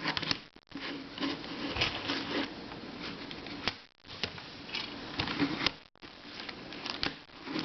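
Plastic twisty puzzles being handled, with irregular clicks and clatters of plastic pieces.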